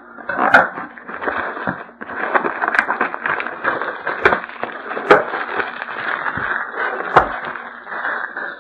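Packaging crinkling and tearing as a sealed trading-card box is opened, with a handful of sharp snaps along the way.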